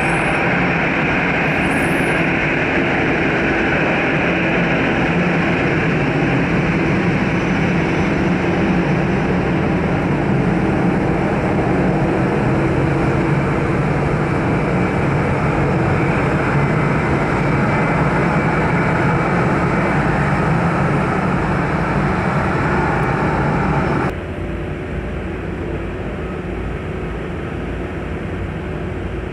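Airbus A319's twin jet engines running at taxi power as the airliner rolls past close by, a steady whine over a low hum. About 24 s in, the sound cuts abruptly to a quieter, duller engine noise from much further away.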